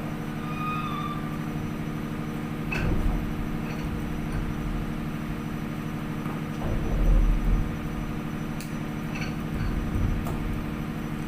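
Ship's engine running with a steady low drone, with a few scattered clicks and knocks over it.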